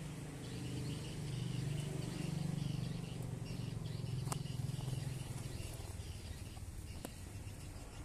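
Lovebirds mating on a perch: faint, repeated high chirps and fluttering wings as one bird mounts the other, with two sharp clicks about four and seven seconds in.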